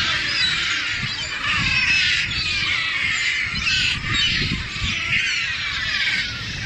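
A large flock of gulls calling together, many harsh calls overlapping in a continuous din.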